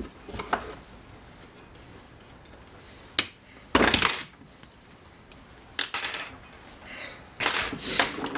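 A metal wire rack being worked to take a rung off: scattered sharp metallic clinks and clanks, with a short clatter about four seconds in and a cluster of clanks near the end.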